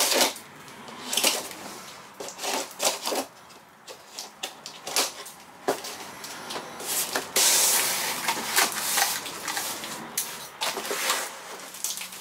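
A large cardboard shipping box being handled and opened: scrapes, rustles and knocks of cardboard, with a longer scrape about seven and a half seconds in.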